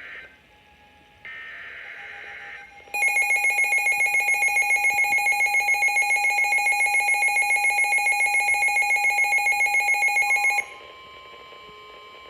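Midland WR-400 and WR-300 weather radios receiving a NOAA Weather Radio severe thunderstorm warning: a short buzzy data burst of the broadcast's alert header, then about three seconds in the radios' alarm sounds loudly in rapid pulses, about seven a second, for some seven seconds. When the alarm stops, a faint steady alert tone carries on.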